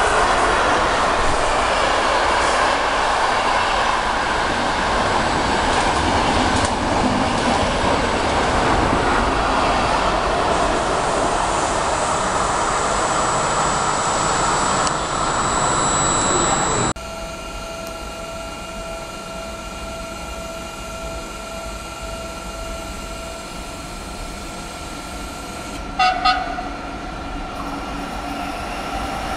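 A Frecciarossa high-speed electric train passing through the station at speed: a loud, steady rush of wheels and air. It cuts off abruptly a little past halfway to a quieter electric train's steady humming tones. Two short horn blasts sound near the end.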